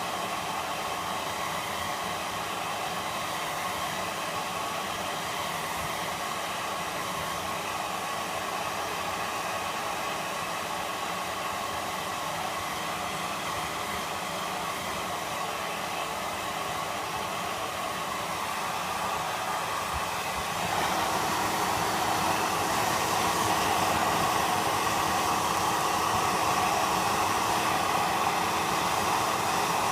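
Hair dryer blowing steadily: a rush of air with a constant hum under it. About two-thirds of the way through it gets suddenly louder and stays that way.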